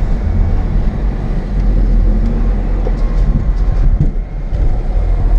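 Steady low rumble of a car on the move: engine and road noise, with a few faint ticks.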